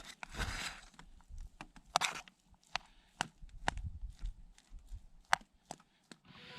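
A run of irregular sharp clicks and light knocks, about a dozen spread over several seconds, with rustling in the first second, like small objects or gear being handled.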